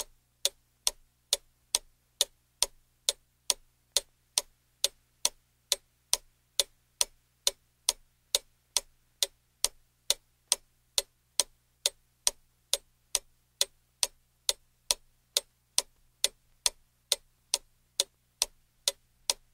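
Ticking clock sound effect keeping time for a 60-second puzzle timer: sharp, evenly spaced ticks, about two a second.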